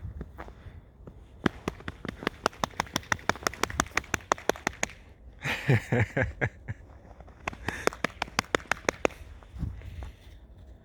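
Pet fox making a quick run of sharp clicks, about six a second, broken about halfway by a short cry that falls in pitch, then another run of clicks.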